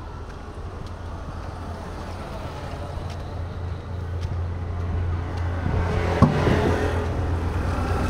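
A motor vehicle on the road, growing louder as it approaches and passes close, loudest about six seconds in. A single short sharp click comes at its loudest point.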